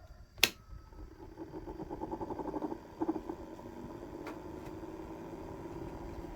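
A sharp click, then a small electric motor starting up: a fluttering buzz that builds for a couple of seconds and settles into a steady hum.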